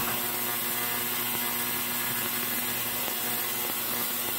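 Ultrasonic parts cleaner running with its tank of soapy water: a steady hum with a high hiss that holds even throughout.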